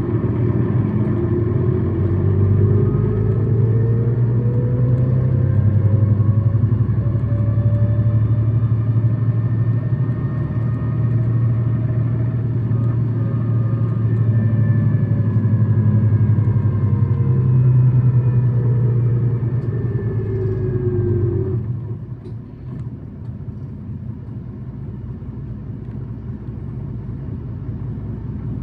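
Tokyu Bus city bus engine and drivetrain running hard at high revs, with a whine that rises in pitch over the first several seconds, holds, then falls away; about 21 seconds in it drops to a quieter, steady idle. This bus is labelled an abnormal-noise vehicle.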